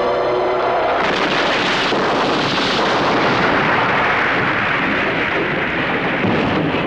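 A loud, sustained explosion-like roar of dense noise, a film blast effect, lasting about six seconds and dropping away near the end.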